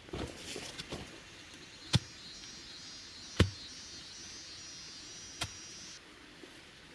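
Rustling, then three sharp knocks a second and a half to two seconds apart, with a high steady buzz behind them that stops suddenly near the end.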